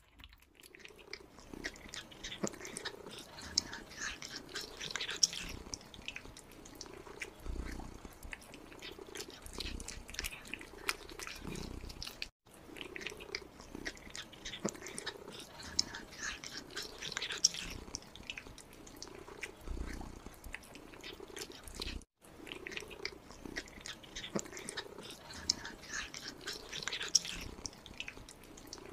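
Kittens eating wet food: quick wet chewing and smacking clicks, with a low purring hum beneath.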